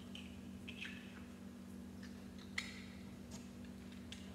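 Faint clicks and taps of small Lego-compatible Wilko Blox plastic bricks being handled and pressed together, the sharpest click about two and a half seconds in, over a steady low hum.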